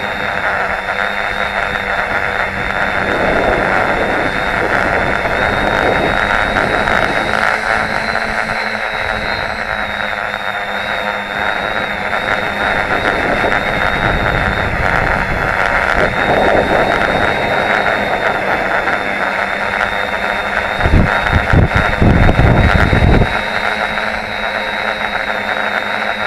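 FPV tricopter's three brushless motors and propellers whining steadily, with a thin high tone over the buzz. About three-quarters of the way through, a loud low rumble cuts in for about two seconds.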